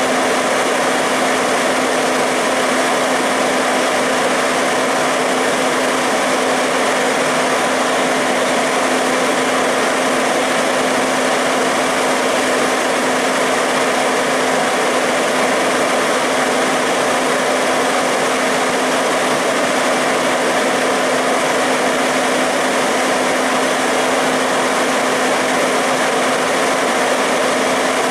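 Parked fire apparatus engines running: a steady, unchanging engine drone with a constant low hum.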